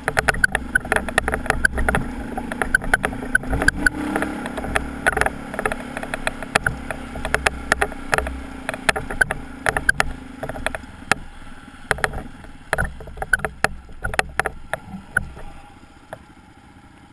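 Dual-sport motorcycle engine running at low speed on a rocky dirt trail, with frequent sharp rattles and knocks from the bike and its luggage jolting over the stones. The engine note and rattling die down over the last several seconds as the bike slows.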